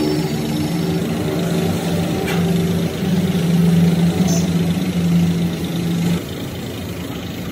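A motor running with a steady low hum that steps slightly higher about three seconds in and cuts off suddenly about six seconds in, over a constant background of noise.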